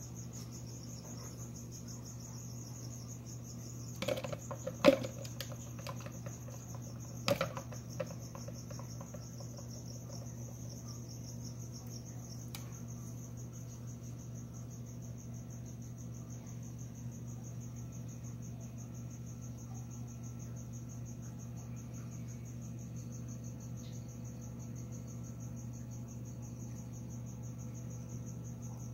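Crickets chirping in a steady, high, pulsing song, over a low steady hum. A few sharp clicks and knocks come about four to eight seconds in, the loudest of them near five seconds.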